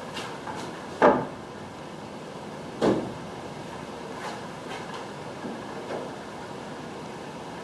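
Two loud, sharp knocks of wood on wood, about a second in and again near three seconds, with a few lighter taps after, as wooden roof spars are handled and set into the camper's frame.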